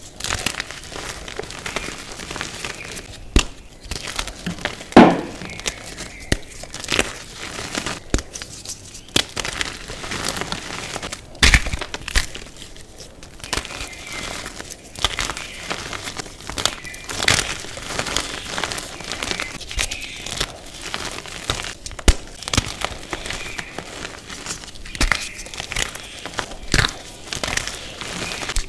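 Chunks of green-dyed reformed gym chalk crushed and crumbled in bare hands: irregular dry crunching and crackling, with sharper snaps as pieces break, the loudest about five seconds in and another about eleven seconds in.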